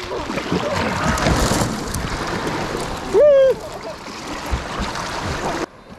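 River water rushing and splashing around an inflatable kayak, with wind noise on the microphone. A brief vocal exclamation about three seconds in, and the sound drops off abruptly near the end.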